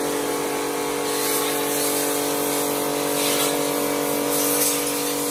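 A loud, steady machine running: an electric motor's hum with several steady tones under a strong hiss.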